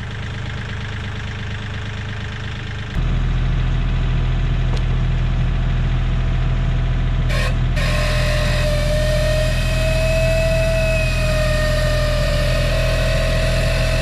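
Kioti 3510 compact tractor's diesel engine running steadily, louder from about three seconds in. From about eight seconds in a steady whine sits over the engine as the tractor-hitched Split-Fire log splitter works a round.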